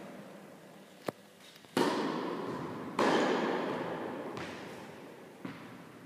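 Tennis balls being hit by rackets and bouncing on the court, about five sharp impacts, each with a long echo in the large indoor hall; the two loudest come about two and three seconds in.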